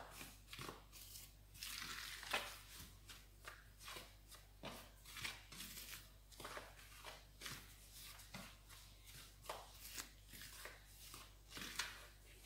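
Flour and dry seasonings being stirred together in a bowl: faint, irregular scraping and swishing strokes, roughly one or two a second.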